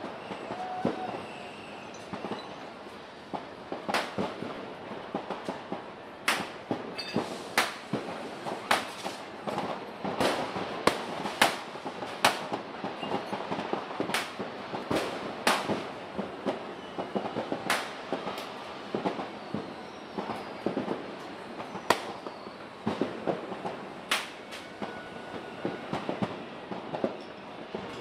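New Year's Eve fireworks and firecrackers going off across a city: irregular sharp bangs, roughly one a second, over a steady background of distant crackling and rumble.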